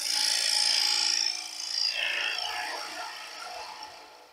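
Bottom feeder bowl gouge cutting into the face of a spinning wood blank on a lathe: a hissing, shearing cut that is loudest in the first second, swells again about two seconds in, and fades away toward the end.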